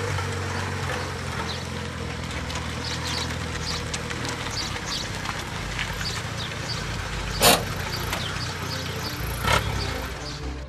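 Two-stroke moped engine running steadily while riding, with two sharp knocks about seven and a half and nine and a half seconds in.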